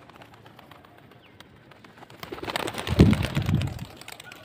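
Domestic pigeons, quiet at first, then a louder low-pitched flurry lasting about two seconds from around two seconds in.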